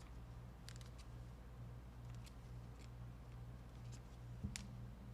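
Faint, scattered clicks and light handling noises from trading cards and their packaging being handled, over a steady low electrical hum.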